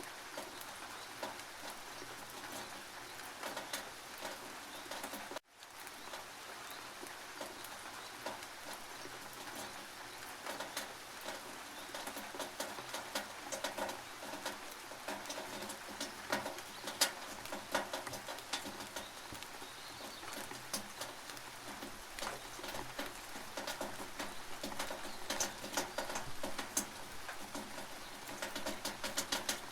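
Rain dripping and pattering on a tin roof: a steady hiss of rain with many sharp individual drip taps. The sound cuts out completely for an instant about five seconds in.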